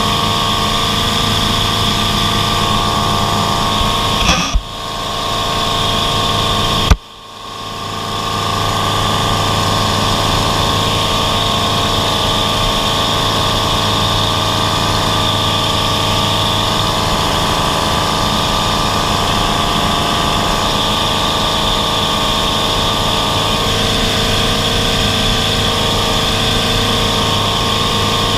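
Propeller plane's engine droning steadily, heard inside the cabin in flight. Two sharp knocks come about four and seven seconds in, each followed by a brief dip in the engine sound.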